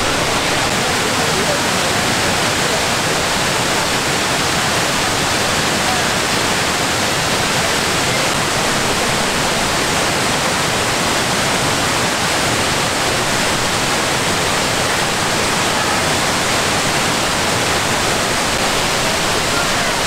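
Water of the Kuang Si waterfall's tiered cascades rushing over the falls in a steady, unbroken roar of falling water.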